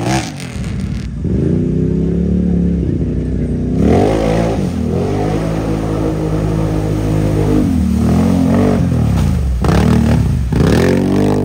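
ATV engines revving hard in a deep mud hole, the pitch surging up and falling back again and again as the throttle is worked to push the machine through the mud.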